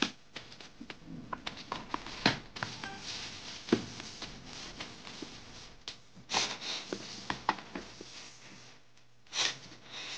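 Plastic clicks and taps as a toy car is handled and set on a plastic launcher ramp, with two short whooshes of air as the launcher's bellows pump is pressed down, about six seconds in and again near the end.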